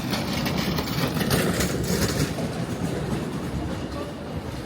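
A motor vehicle passing close by, a low rumble with a hiss of tyres that is loudest for the first two seconds and then fades.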